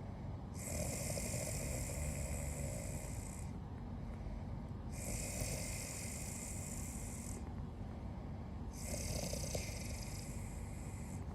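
Soft, rhythmic snoring, three slow breaths about four seconds apart.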